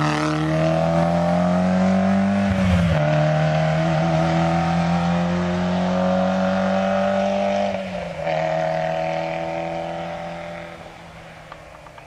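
Rally car engine at full throttle, accelerating hard past and away. Its pitch climbs through the gears, with an upshift about two and a half seconds in and another about eight seconds in, and the sound fades into the distance near the end.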